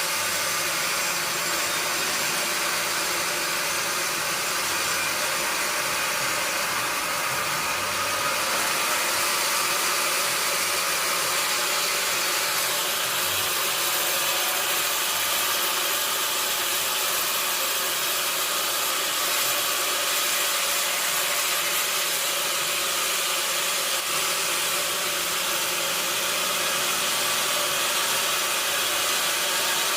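Sawmill log saw running steadily as it cuts through a log, a constant hiss with a faint hum underneath and no clear breaks.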